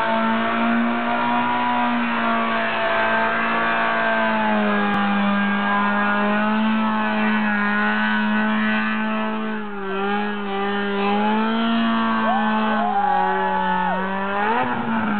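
Mazda Miata's four-cylinder engine held at high revs in a burnout, rear tyres spinning and squealing on the asphalt. The revs sag and waver twice in the second half, then drop off right at the end.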